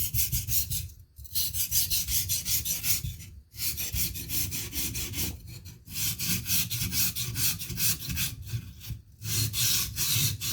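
Steel knife edge being stroked quickly back and forth on a coarse King 300-grit whetstone, a gritty scraping in runs of rapid, even strokes with short pauses about a second, three and a half, six and nine seconds in. This is the coarse stage of the sharpening, raising a burr on the edge.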